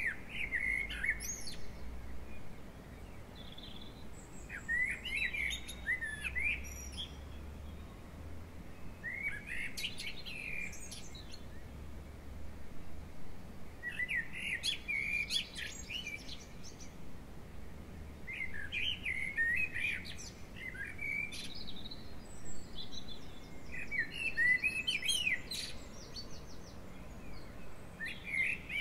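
A songbird singing, each short, jumbled phrase of chirps and warbles coming every four to five seconds.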